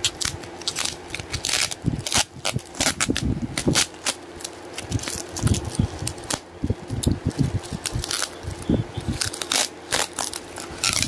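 Bubble wrap crinkling and crackling as it is handled and pulled open by hand, a rapid irregular run of sharp crackles.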